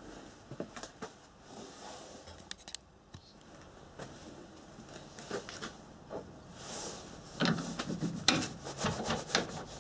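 Metal clinks and knocks from hands working at a lathe's four-jaw chuck that holds a flywheel rotor. A few light clicks come first, then a cluster of louder knocks and clatter in the last two seconds.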